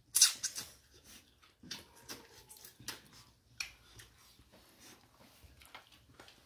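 Eating noises at a table: lip smacks, sucking and chewing as people eat chicken and rice by hand, a scatter of short sharp clicks with one louder noisy burst just after the start.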